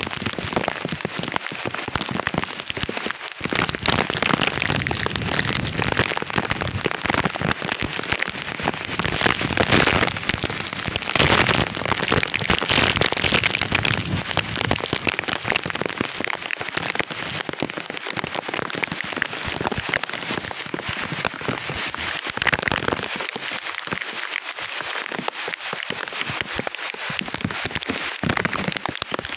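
Typhoon wind and heavy rain lashing through banana plants and trees, a continuous rush that swells louder in stronger gusts around the middle.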